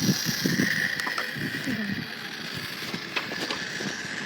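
Electric motor and gearbox of an RC crawler truck whining steadily as it drives.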